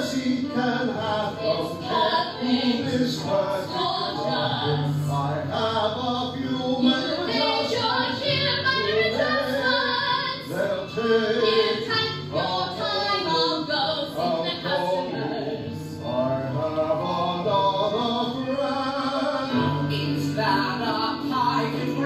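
Live musical theatre number: singers carrying a melody over instrumental accompaniment.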